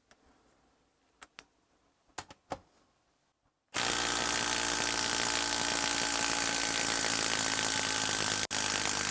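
A few light handling taps, then about four seconds in a Makita 12V brushless impact driver starts hammering a long screw into a log round, running steadily with a momentary break near the end.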